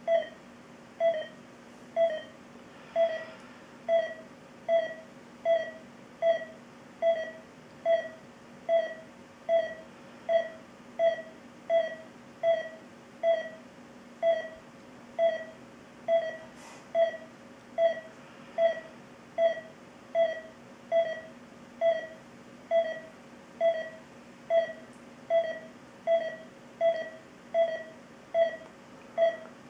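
Philips IntelliVue X2 (M3002A) patient monitor sounding its SpO2 pulse tone: a short beep, evenly repeated a little faster than once a second, one beep per detected heartbeat at a pulse of about 70. A faint steady hum lies underneath.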